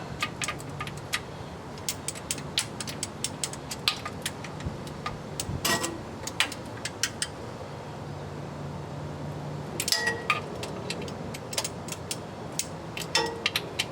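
Hand ratchet clicking in short irregular runs as the transmission oil pan bolts are snugged down on a final pass around the pan, over a low steady hum.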